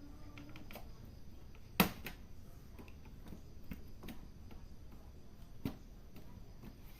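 Plastic snap clips of a laptop's bottom case clicking loose as a plastic card is pried along the seam: one sharp snap about two seconds in, then scattered smaller clicks and ticks, with another sharp one near the end.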